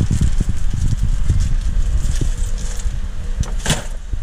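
Close handling noise: a dense run of low bumps and rumble with light plastic-bag crinkling, as hardware is rummaged for and the camera is moved. One sharp knock near the end.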